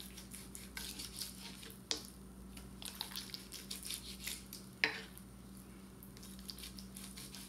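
Kitchen knife slicing between baby back ribs: light scraping clicks, with two sharper knocks about two and five seconds in.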